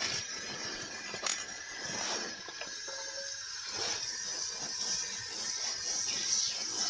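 Butter and olive oil sizzling steadily in a frying pan, with a couple of light clicks and scrapes of a pan or utensil.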